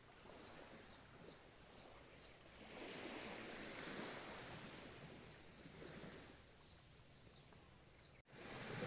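Ocean waves washing gently on a shore, swelling about three seconds in and easing off, with faint repeated high chirps over them. Near the end the sound cuts out for an instant and comes back as louder surf.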